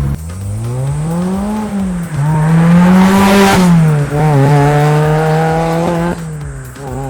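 Lotus 2-Eleven's supercharged 2ZZ four-cylinder with an aftermarket titanium exhaust, pulling hard: the revs climb, dip briefly about two seconds in as if at a gear change, then climb and hold high with a loud rush of noise around three seconds in. The revs then fall back and the engine runs steadily at a lower pitch before easing off near the end.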